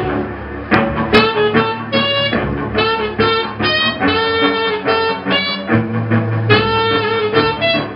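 Saxophone and cello playing a duet: the saxophone plays a quick line of short notes, several a second, over bowed cello notes beneath.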